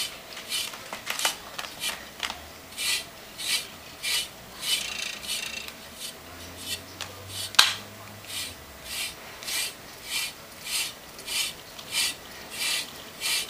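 Repeated rasping strokes of a rake's tines drawn through a cat's fur, a little under two strokes a second, with one sharp click about seven and a half seconds in.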